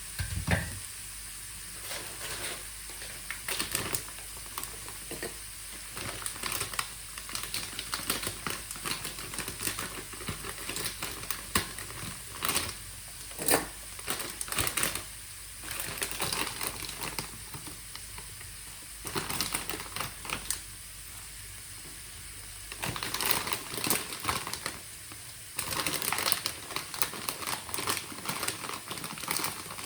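Kitchen utensils clicking and knocking in quick, irregular bursts over a steady faint hiss, with denser runs of clicks in the last third.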